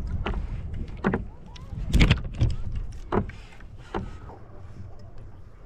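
Handling noise in a kayak during a fish fight: half a dozen irregular knocks and clatters from the rod, reel and hull, the loudest about two seconds in, over a low rumble.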